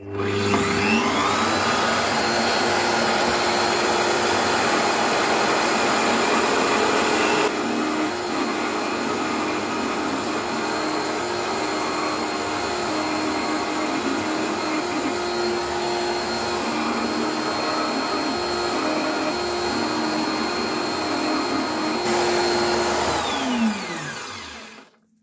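Benchtop drill press spinning up, running with a grinding bit that grinds down the rough edge of a jigsaw-cut hole in acrylic glass, then winding down near the end. The motor gives a steady high whine over a lower tone that wavers as the bit bears on the plastic.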